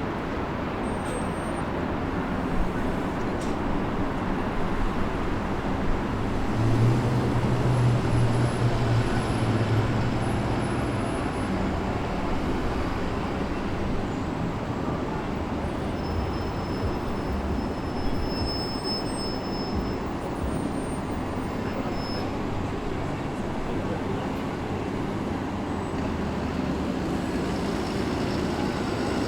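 Steady transit-station ambience: a continuous wash of vehicle and traffic noise. About seven seconds in, a low engine hum swells for a few seconds and then fades back.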